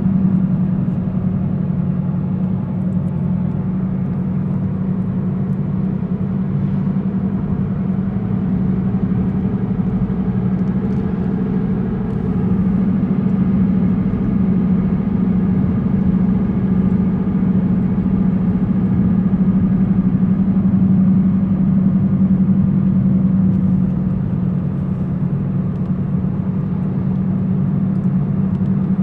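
A car driving with a steady low hum and rumble that swells a little louder about halfway through. The owner suspects a bad front driver's-side wheel bearing.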